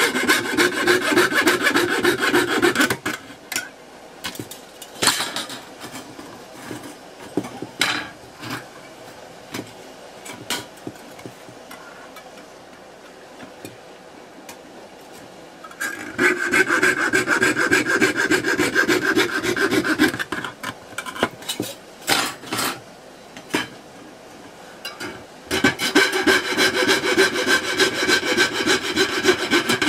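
Fine fretsaw blade cutting through thin brass sheet with rapid back-and-forth strokes. It comes in three spells: about three seconds at the start, four seconds just past the middle and four seconds near the end, with only light clicks in between.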